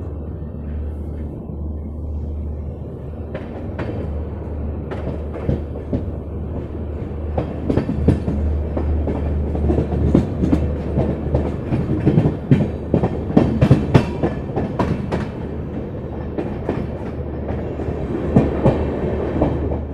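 Passenger train coach rumbling steadily, heard from an open coach doorway as it rolls out of a station. From about three seconds in, its wheels clatter over rail joints and points in irregular clusters of sharp clacks, busiest in the middle.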